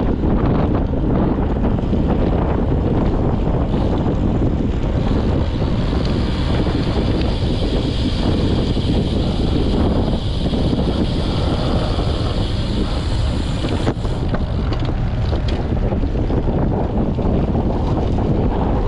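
Wind buffeting the microphone of a handlebar-mounted camera on a road bike moving at about 30 km/h, a steady loud rumble of rushing air. A higher hiss joins in for several seconds mid-way and stops abruptly about fourteen seconds in.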